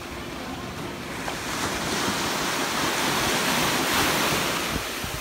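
Small wave washing up a sandy beach: a rushing surf hiss that swells over a few seconds, peaks near the end, then begins to ease.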